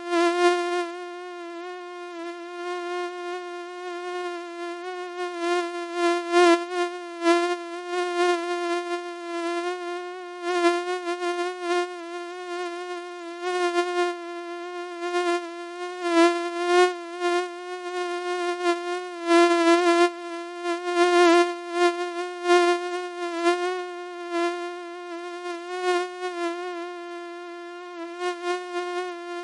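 Mosquito wing whine: one steady, buzzing tone with a rich stack of overtones, swelling louder and fading back irregularly every second or so.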